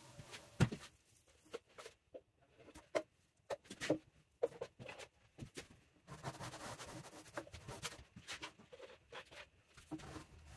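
Hand-tool work on a wooden coffee table being stripped of paint: scattered light clicks and knocks, then from about six seconds a steadier scratchy scraping.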